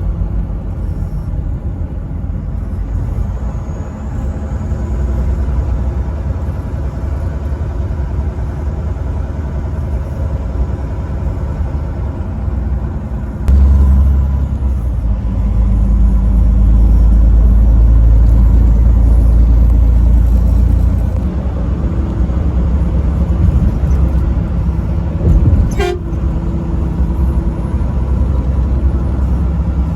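Truck's diesel engine droning steadily at highway speed, with road rumble. Partway through it turns suddenly louder and deeper for several seconds, then settles back.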